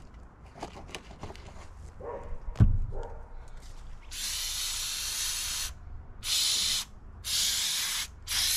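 Aerosol wasp spray hissing in about four bursts of roughly a second each, sprayed into a wasp nest in the log, after a few clicks and a loud thump.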